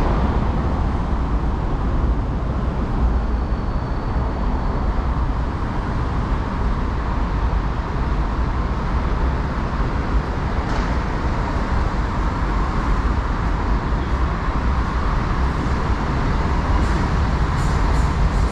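MTR Kwun Tong line C-Train running through the station out of service: a steady, loud rumble of the train in motion, with a few sharp clicks near the end.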